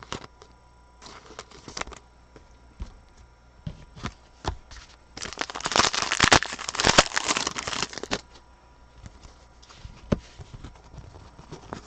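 Trading cards being handled, with scattered small clicks and taps, and a loud burst of crinkling packaging about five seconds in that lasts nearly three seconds.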